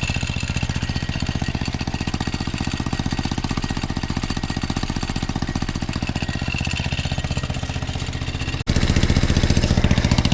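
Mini Jeep's small engine running with a rapid, even firing pulse on a test drive of its repaired drive chain. It gets suddenly louder near the end.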